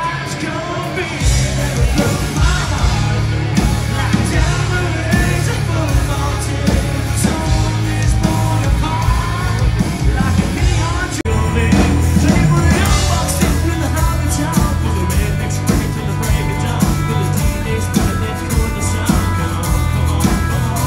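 Loud rock music with singing, its heavy bass line coming in about a second in.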